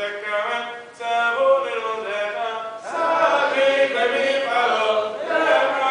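Men's voices chanting the Sephardic Selichot liturgy together in a melodic, unaccompanied chant, phrase by phrase, with short breaks about a second in and just before three seconds.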